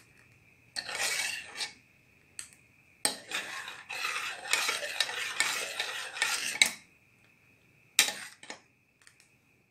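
Metal spoon stirring and scraping thick chocolate pudding against the sides and bottom of a stainless steel pot as it simmers, in two spells, then two sharp clinks of the spoon on the pot near the end. A faint steady high whine sits underneath.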